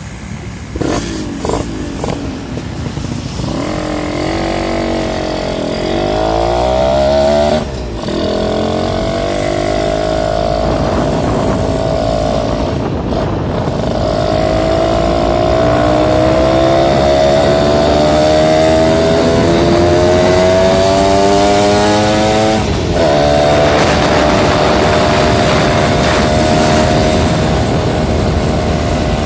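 Suzuki Tornado two-stroke motorcycle engine pulling through the gears: its pitch climbs, drops sharply at a gear change about 8 seconds in, climbs again for a long stretch, drops at another change near 23 seconds, then holds steady. A few short knocks sound in the first couple of seconds.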